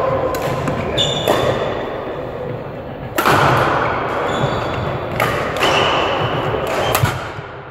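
Badminton doubles rally: several sharp racket hits on the shuttlecock, the loudest about three seconds in, with brief squeaks of court shoes and the thud of players' footfalls.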